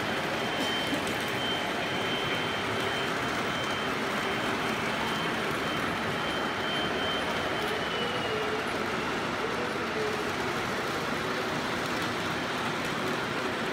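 O-gauge three-rail model trains running around the layout: a steady whir and rumble of locomotive motors and wheels on the track, with a faint high whine that fades out about eight seconds in.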